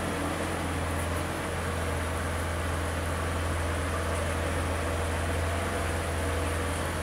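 Mitsubishi 3000GT's V6 engine idling steadily with a constant low hum.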